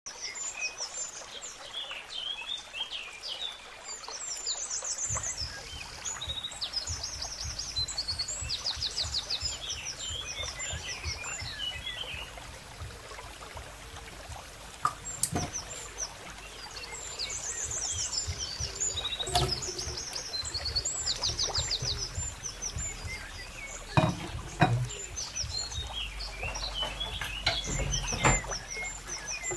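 Birds chirping and trilling repeatedly in the background over a low steady rumble, with a few sharp knocks, the loudest ones about two-thirds of the way through.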